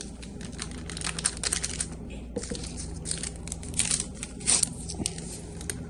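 Small stevia sweetener packets being torn open and crinkled, a run of quick crackles and rustles.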